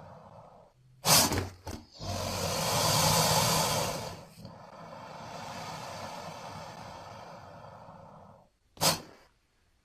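Designed dinosaur creature sound effects for a Baryonyx: a short sharp burst of breath about a second in, then a loud breathy hiss lasting about two seconds, a long quieter exhaling hiss, and another short sharp burst of breath near the end.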